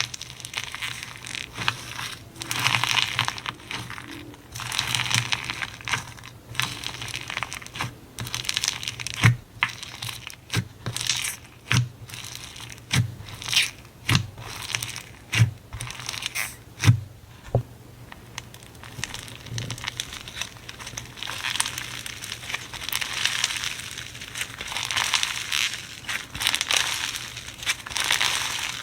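Slime being squeezed and stretched by hand: crackling, crinkly sounds, with a run of about eight sharp pops in the middle.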